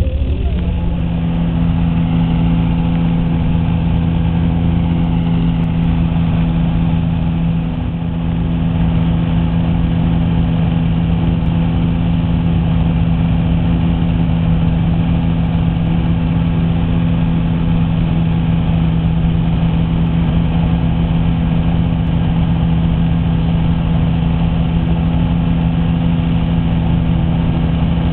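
Light propeller aircraft's piston engine running at a steady speed, a constant, unchanging drone.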